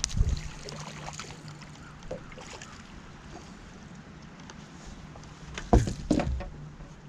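Bass boat in wind-driven chop: waves slap and knock against the hull, loudest just after the start and twice around six seconds in, over a steady low hum.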